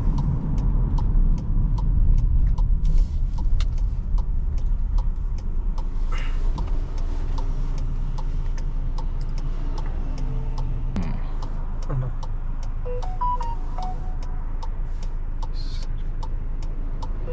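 Turn-signal indicator ticking evenly, about three clicks a second, over the low engine and road rumble inside a 2024 Volkswagen Tiguan's cabin. Near the end a quiet tune of short notes starts.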